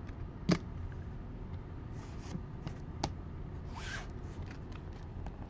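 Trading cards and a plastic card holder being handled on a table: a sharp click about half a second in, another near the middle, and a brief rustle of cards sliding just before the end.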